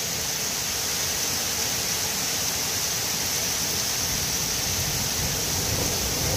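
Heavy rain pouring down in a steady hiss. A low rumble of thunder starts to build near the end.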